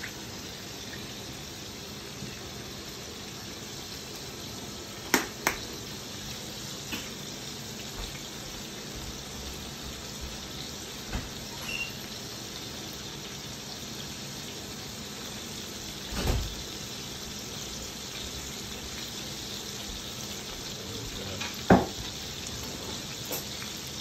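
Chicken thighs sizzling in a frying pan: a steady hiss, broken by four sharp knocks, the loudest near the end.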